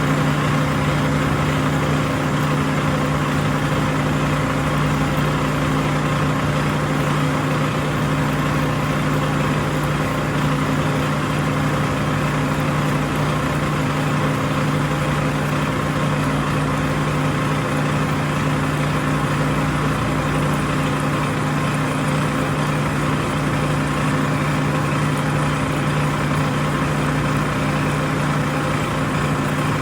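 Milling machine running steadily while drilling metal: a constant motor hum with a strong low tone over an even hiss, unchanging throughout.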